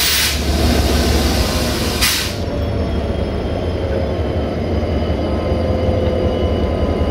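GM/EMD-engined class 65 'Jimmy' diesel-electric locomotive idling with a steady low rumble and a faint high whine. Two short bursts of air hiss, one at the start and one about two seconds in.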